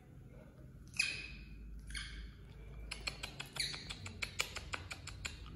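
Baby monkey crying: a shrill, falling squeal about a second in and a shorter cry at two seconds, then a rapid run of short, sharp squeaks for about two seconds.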